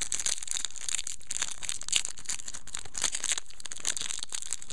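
Foil trading-card booster pack wrapper crinkling as it is torn open and handled, a dense run of small crackles.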